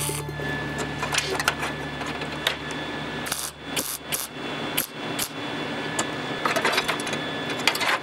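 MIG welder crackling in short, irregular bursts as it tack-welds seams on sheet metal.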